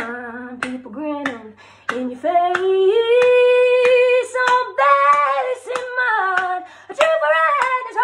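A woman singing a cappella in a blues style, with long held notes that bend in pitch, over a steady beat of finger snaps about every 0.6 seconds.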